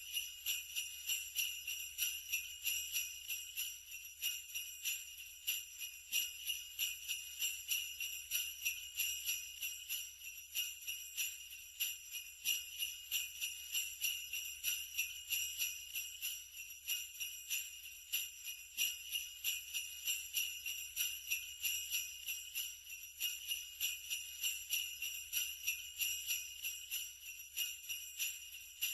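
Sleigh bells shaken in a steady rhythm, about two shakes a second, giving a continuous bright jingling.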